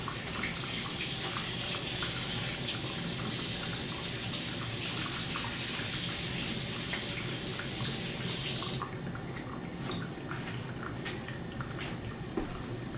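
Steady hiss of running water that cuts off suddenly about nine seconds in, followed by faint clicks and taps.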